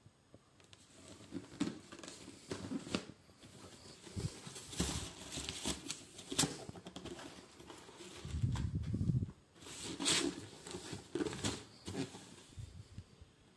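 Cardboard shoe box being handled and turned over by hand: irregular scraping, rubbing and light tapping of the cardboard, with a heavier dull bump about eight seconds in.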